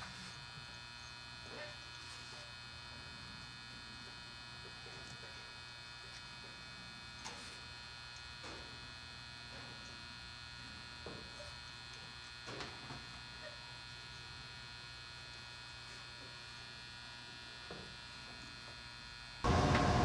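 Steady electrical mains hum, with a few faint clicks and taps as crimped contacts are worked into plastic Anderson Powerpole housings.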